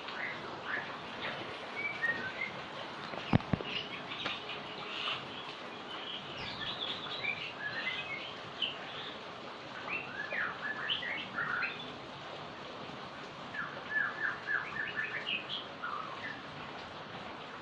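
Small birds chirping in short, high calls, including a quick run of chirps near the end, over the steady hiss of heavy rain. Two sharp knocks sound about three seconds in.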